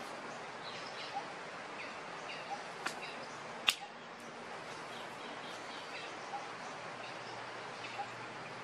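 Outdoor ambience: a steady background hiss with faint, short chirping calls about once a second, and a sharp click a little before the middle, the loudest sound, with a weaker one just before it.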